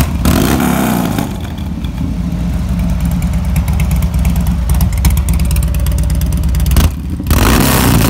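Harley-Davidson Dyna Street Bob's air-cooled V-twin running through an aftermarket two-into-one exhaust with heat-wrapped headers. It idles between throttle blips: a rev right at the start and another near the end, after a brief dip.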